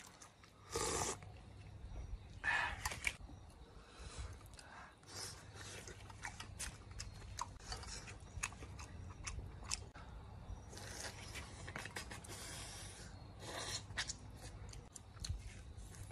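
Close-up eating sounds: chewing and biting of grilled food, with frequent small wet clicks and a few louder short bursts.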